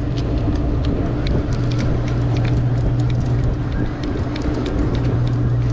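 The boat's engine drones steadily with a constant low hum. Wind noise rushes over the microphone, and faint light clicks come scattered throughout.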